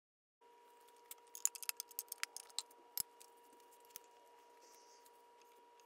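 Faint light clicks and clatter of small objects handled on a workbench: a quick run of sharp clicks, then two single taps, over a steady electrical hum.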